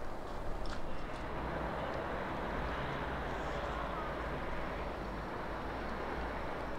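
City ambience in a snowstorm: a steady wash of noise over a low rumble, like distant traffic, swelling slightly in the middle, with a couple of faint clicks about a second in.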